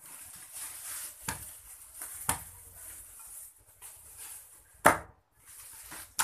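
A meat cleaver chopping through a whole raw chicken on a wooden chopping block: four heavy chops at uneven intervals, the third much the loudest.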